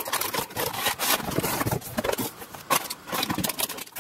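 Clear plastic packaging crinkling and cardboard rustling and scraping as a toy RC excavator is pulled out of its box, an irregular run of crackles and rubs.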